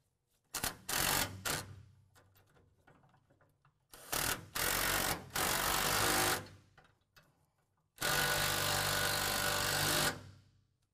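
Cordless impact wrench running in short bursts as it drives flange nuts tight onto carriage bolts: a few quick bursts, a longer run about four seconds in, then a steady run of about two seconds near the end.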